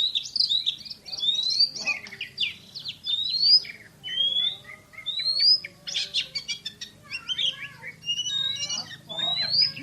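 Oriental magpie-robin singing: a string of short rising whistles, about one a second, broken by quick bursts of rapid clipped notes near the middle.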